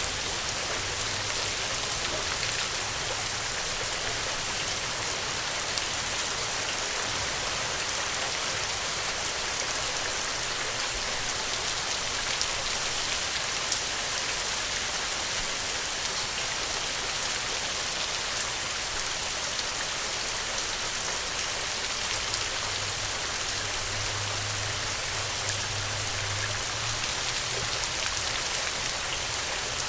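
Steady rain falling, an even hiss of many drops hitting a surface with small scattered drop ticks, and a faint low hum in the background.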